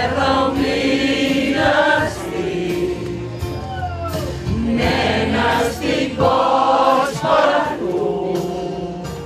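A group of people singing a song together in a crowded room, the voices rising and falling in sung phrases.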